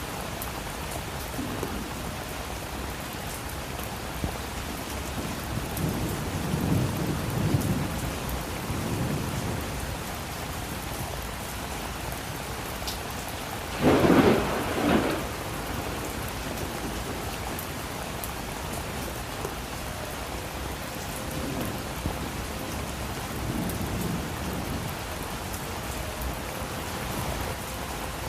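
Steady rain falling, with distant thunder rumbling twice and a louder, sharper thunderclap about halfway through.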